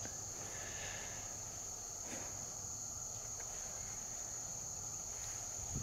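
Insect chorus making one steady, unbroken high-pitched drone.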